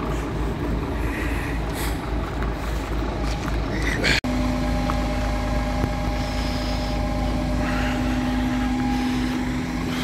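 Fire trucks' engines running, a steady low rumble. The sound cuts out for an instant about four seconds in, after which a steady engine hum with a clear pitch carries on.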